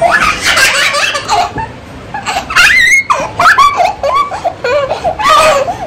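A woman and a small child laughing loudly together, in repeated bouts of giggling.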